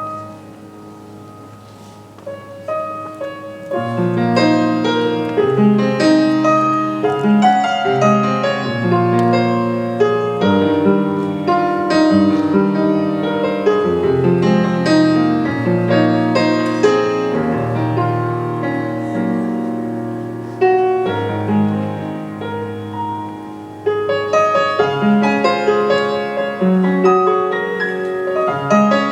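Piano playing a flowing melody over chords, soft at first and becoming fuller about four seconds in, easing off briefly before swelling again near the end.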